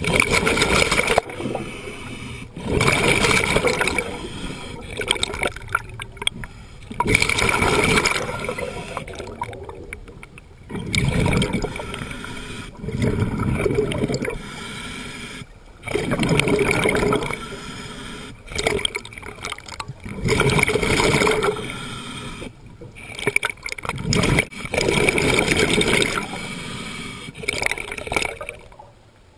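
Scuba diver breathing through a regulator underwater: exhaled bubbles rush out in loud bursts about every four seconds, with quieter stretches between.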